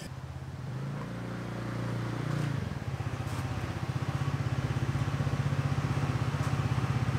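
Motor scooter engine running and growing louder as it comes closer, then settling about two and a half seconds in into a steady idle with an even pulsing beat.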